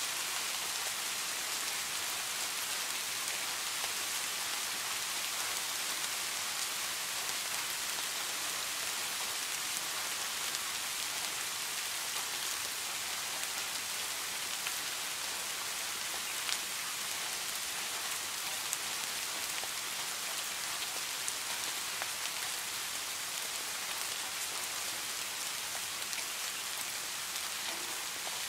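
Steady rain falling, an even high hiss with a few louder single drops ticking now and then.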